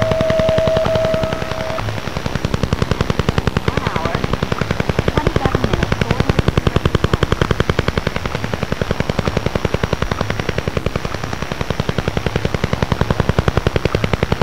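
The Duga-1 radar's shortwave signal, the 'Russian Woodpecker', as heard on a shortwave receiver: a rapid, even tapping that repeats without a break. A steady tone sounds over it for the first two seconds.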